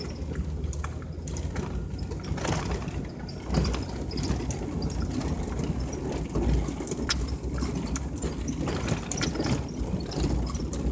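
Vehicle driving slowly over a rough dirt track, heard from inside: a steady low engine and road rumble with scattered knocks and rattles from the bumpy ground.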